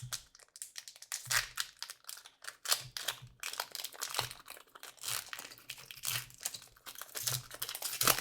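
Foil wrapper of a Topps Chrome trading card pack crinkling as it is torn open and handled, in irregular crackly bursts.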